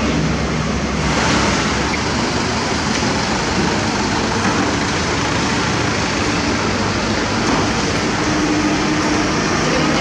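Heavy diesel engines of trucks and construction machinery running steadily, a dense engine noise with a low hum underneath.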